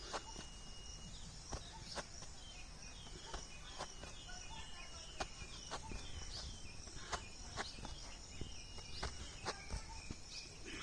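Outdoor ambience: insects trilling steadily at a high pitch while a bird gives many short, falling chirps, with scattered light taps and clicks.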